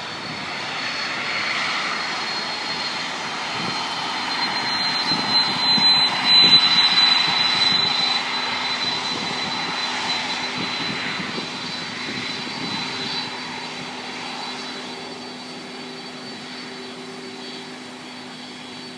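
Airplane taking off, its engines at takeoff power: a broad roar with a steady high whine that builds to its loudest about six seconds in, then slowly fades as the aircraft climbs away.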